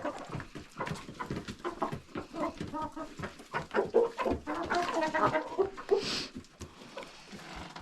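Backyard hens clucking in short, repeated calls, with scattered clicks and a brief rustle about six seconds in.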